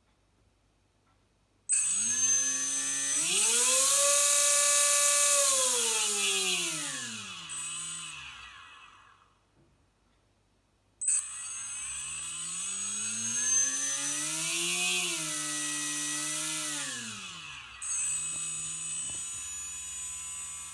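Small electric motor spinning the two-armed metal blade of an RC model tractor's front rotary cutter: it whines up in pitch, runs, and winds down, twice, the second run quieter.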